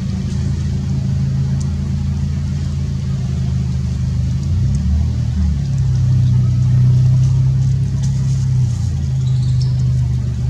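A steady low engine hum, its pitch shifting briefly about five seconds in, with a faint high chirp near the end.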